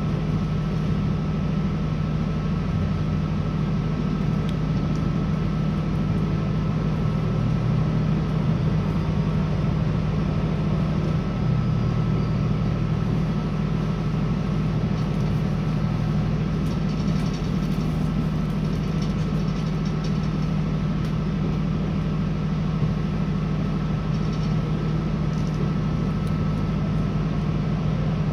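Northern Ireland Railways CAF 3000 class diesel multiple unit running at speed, heard from inside the passenger saloon: a steady low drone of engine and wheels on rail, with a thin steady high whine. A few faint high squeaks come through about two-thirds of the way in.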